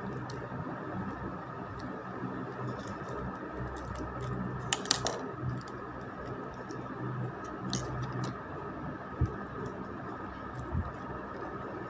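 Scissors snipping through a clear plastic cover and paper, trimming the excess from around a paper cutout: irregular short clicks of the blades, the loudest a little before halfway through.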